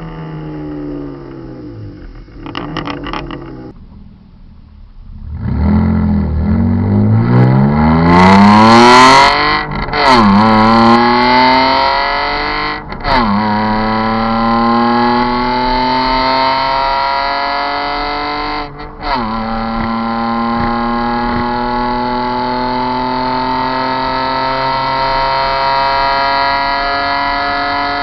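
BMW M52TU 2.8-litre straight-six with a straight-piped exhaust and no mufflers, coming off the throttle with a few crackles, then accelerating hard through the gears: the pitch climbs steeply, drops at each of three upshifts a few seconds apart, and climbs again.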